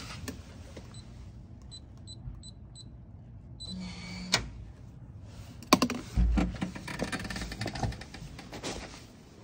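Four short, high beeps in quick succession, then clicks, a loud knock and a low thud, with rustling and clicking as things are handled close to the microphone.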